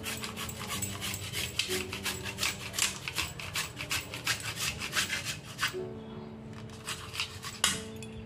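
Carrot being grated on a flat handheld stainless steel grater: quick rasping strokes, about four a second, turning fainter after about six seconds, with one sharp knock near the end. Background music plays faintly underneath.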